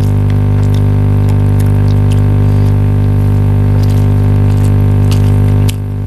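A loud, steady hum with many evenly spaced overtones, dropping a little in level shortly before the end, with a few faint clicks on top.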